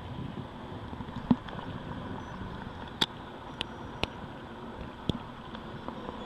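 A hooked crucian carp splashing at the water surface among reeds: a few sharp slaps and clicks, the loudest about a second in and about three seconds in, over steady background noise.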